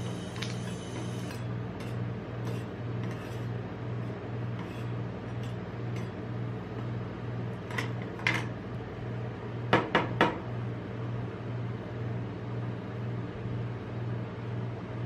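Rolled-ice-cream cold plate's refrigeration unit humming steadily with a slight regular pulse. Metal spatulas tap on the steel plate: a couple of clicks about eight seconds in, then three sharp, louder taps in quick succession around ten seconds.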